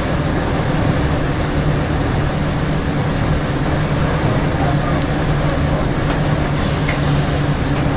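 Electric passenger train running at speed, heard from the driving cab: a steady rumble of wheels on rail with a low hum from the running gear. A couple of brief high hissing sounds come near the end.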